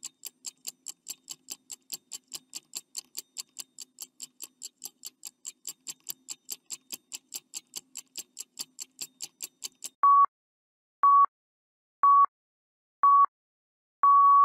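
Countdown timer sound effect: fast, even ticking at about four ticks a second for about ten seconds, then a high beep once a second, four short beeps followed by a longer final beep that signals the time is up.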